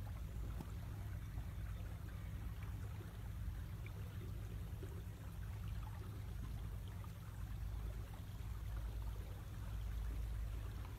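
Water washing and trickling along the hull of a sailing yacht moving slowly under quiet electric motors, over a steady low rumble.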